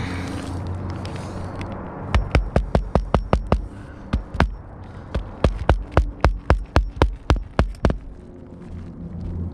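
Hammer driving roofing nails into an asphalt shingle, quick sharp blows in runs. A fast run of about eight strikes starts about two seconds in, then two single strikes, then a longer run of about fourteen strikes at roughly five a second.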